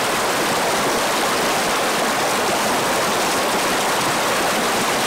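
River water rushing and churning through a narrow rock channel, a steady, unbroken rush.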